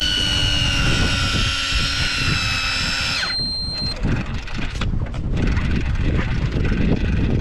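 Daiwa Tanacom 1000 electric fishing reel's motor whining steadily as it winds in line, then winding down and stopping about three seconds in. After that a low rumbling noise with a few short knocks.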